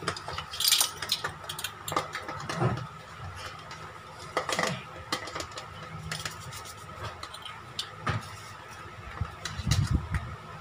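Scattered light clinks and taps of metal measuring spoons jangling on their ring while a plastic salt canister is handled and tipped, over a faint steady high hum.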